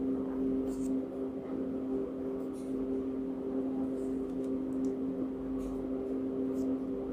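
Steady two-tone hum from a motor or appliance, with faint short scratches of a ballpoint pen drawing strokes on paper.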